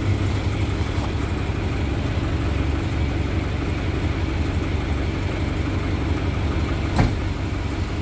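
Engine of a crane-manipulator truck running steadily at low revs, a deep even hum. A single sharp knock about seven seconds in.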